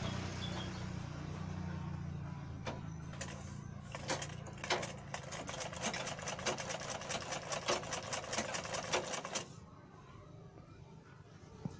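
Domestic sewing machine running and stitching cloth, a rapid, uneven mechanical clatter over a low hum. It stops suddenly about nine and a half seconds in.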